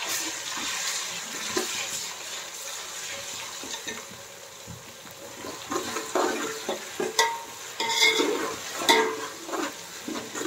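Ginger-garlic paste and sliced onions sizzling in hot oil in a metal pot while being stirred with a metal slotted spoon. From about six seconds in, the spoon scrapes and clinks against the pot, some strikes ringing briefly.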